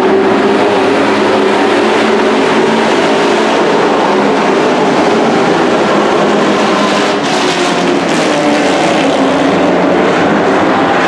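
A pack of dirt-track race trucks running hard around the oval: several engines at high revs blend into one steady drone, their pitches wavering against each other as the trucks pass.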